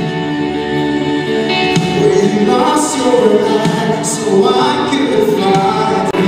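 Live Christian worship song: several voices singing together over a steady accompaniment.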